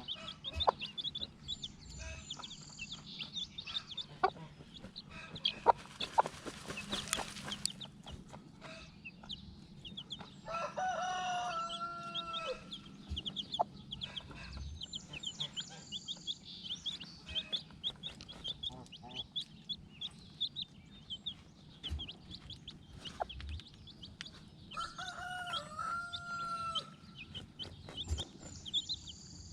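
Chickens: a rooster crows twice, about ten seconds in and again near the end, over steady high chirping and clucking from the flock. A brief burst of rustling noise comes about seven seconds in.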